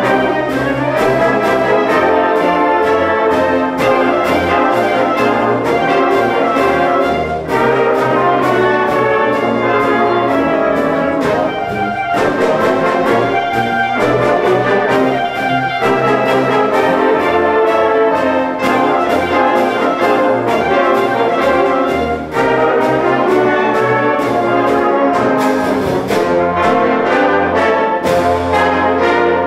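Concert band playing a loud piece with the brass prominent, many quick notes over a sustained low part.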